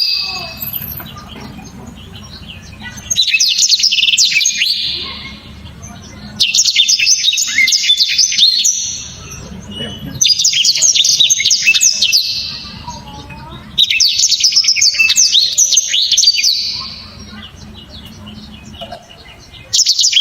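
Black-throated canary (blackthroat) singing loud, rapid phrases of high trills and chattering notes, each about three seconds long, with short pauses between them.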